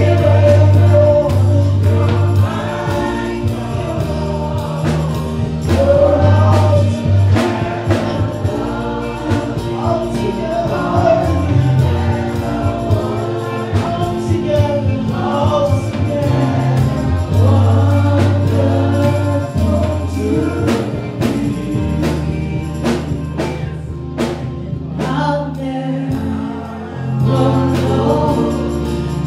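Contemporary gospel worship song: a choir singing over bass and percussion backing.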